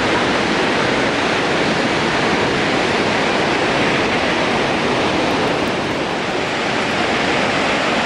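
Kegon Falls, a tall waterfall, rushing with a steady, unbroken roar of falling water that does not change.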